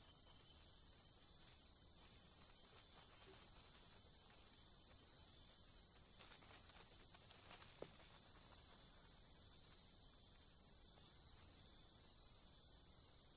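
Faint, steady high-pitched chorus of night insects, with a quick run of chirps about five seconds in and a few faint ticks a little later.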